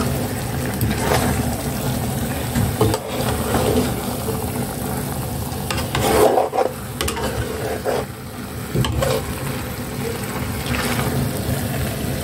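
A spoon stirring thick spinach and mushroom soup in a cooking pot, giving scattered scrapes and soft knocks, over a steady low hum.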